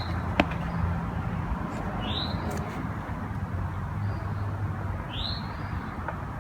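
A bird calls twice, a short high chirp that rises and falls, about three seconds apart, over a faint steady low hum.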